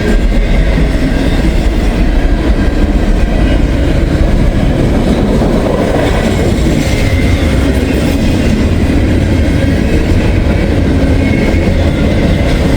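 Norfolk Southern intermodal freight train rolling past at close range, a steady loud run of container cars on the rails.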